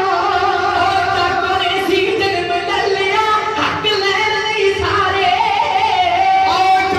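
Punjabi kavishri: men singing a poem without instruments, in long held, wavering lines, amplified over a PA.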